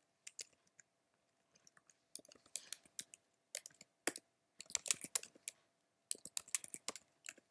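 Typing on a computer keyboard: bursts of quick key clicks separated by short pauses, with a faint steady hum underneath.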